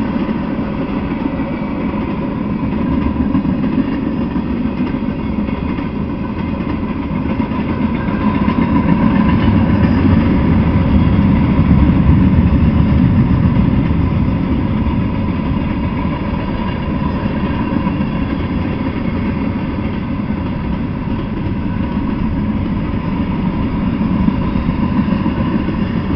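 Freight train of tank cars and covered hoppers rolling past at speed: a steady rumble and clatter of steel wheels on the rails, a little louder around the middle.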